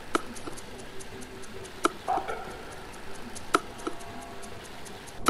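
Steady soft ticking over a hiss, with a sharper click about every second and a half to two seconds.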